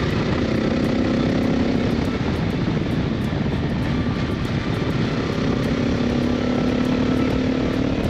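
Adventure motorcycle engine running steadily at cruising speed, heard from the rider's seat with road and wind noise around it.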